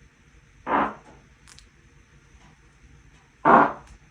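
A person farting twice: a short fart about a second in and a slightly longer, louder one near the end.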